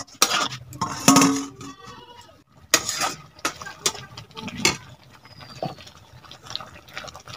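Metal spatula clinking and scraping against a stainless steel kadai as a curry is poured in from a steel bowl and stirred. There is a quick run of knocks at the start, then lighter, scattered clinks.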